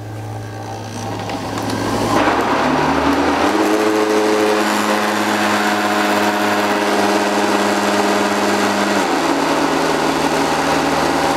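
Personal bullet-style blender motor running, blending water, oil, sugar, eggs and salt into a creamy liquid. The motor's whine rises in pitch and gets louder two to three seconds in, holds steady, then drops slightly about nine seconds in.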